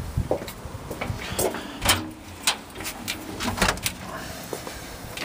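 Clicks and knocks of a door being unlocked and opened, a string of sharp separate strikes spread over several seconds.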